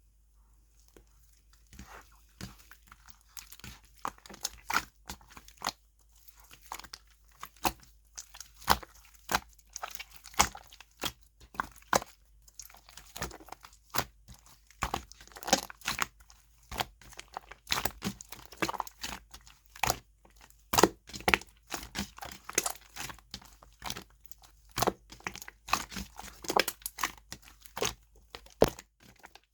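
Macaron slime being mixed and worked by hand, giving a dense, irregular run of crisp crackles and pops that begins about a second in.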